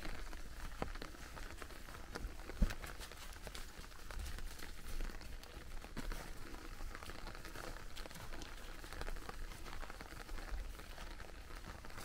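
Footsteps of a person and a husky on wet fallen leaves, with rain pattering steadily and many small ticks of drops. A single louder knock comes about two and a half seconds in.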